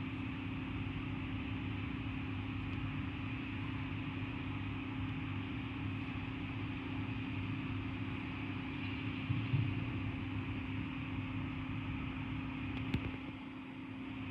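Steady mechanical hum with a constant low tone and a steady hiss, broken by a short thump about nine and a half seconds in and a sharp click near the end.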